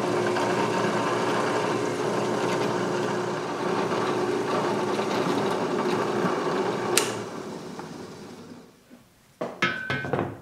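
Drill press running with a steady hum, its twist bit boring through a steel bar. There is a sharp click about seven seconds in, and the running fades out over the next second or so. A few short ringing metal clinks come near the end.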